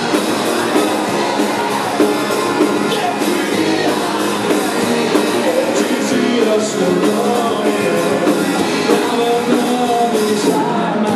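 Rock music from a band at a steady loud level: a melodic line bending in pitch over a dense accompaniment with regular drum hits.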